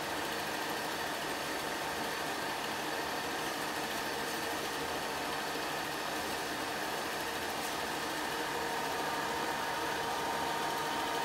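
8mm film projector running: the steady mechanical whir of its motor, fan and film transport, with a constant whine.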